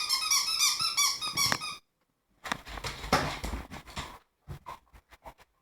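A squeaky dog toy squeaked rapidly over and over as a dog chews it, stopping just under two seconds in. After a short pause there is a stretch of rustling and then a few scattered light knocks.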